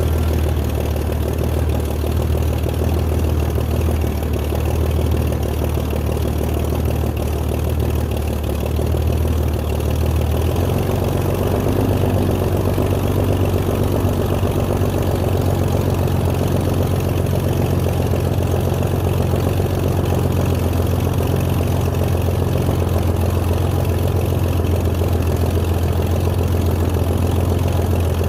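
Corvair air-cooled flat-six aircraft engine running steadily on its first run, turning the propeller directly. About ten seconds in its speed steps up slightly and then holds evenly.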